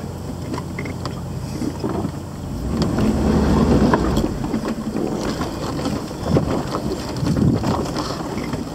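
Jeep Wrangler Unlimited Rubicon engine running low and steady as it crawls over rock, heard from inside the cab, louder from about three seconds in. Irregular knocks and crackles from the tyres and body on rock and brush.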